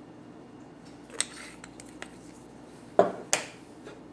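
A few sharp clicks of a small pepper shaker and kitchen things being handled on the worktop, the loudest two knocks coming close together about three seconds in.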